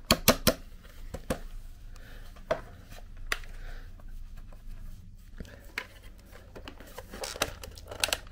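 The hard plastic casing of a Hoover Jovis Cyclean handheld vacuum being handled at its seam: scattered sharp clicks and knocks of plastic, several in quick succession just after the start and another cluster near the end.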